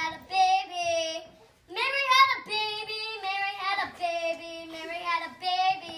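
Young children singing a song together in sung phrases, with a brief pause about a second and a half in.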